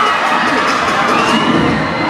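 Large crowd cheering and shouting, with scattered whoops over a steady roar of many voices.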